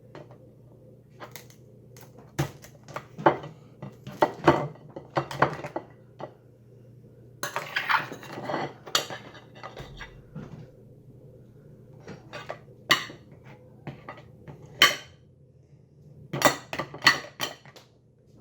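A spoon knocking and clacking against crab legs to crack the shells, in irregular sharp strikes, with bursts of rapid blows about halfway through and again near the end.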